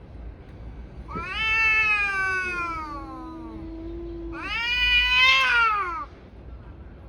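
Two Li Hua (Dragon Li) tabby cats yowling at each other in a fight standoff. There are two long drawn-out yowls, the second louder, each falling in pitch at its end, with a lower held wail underneath between them.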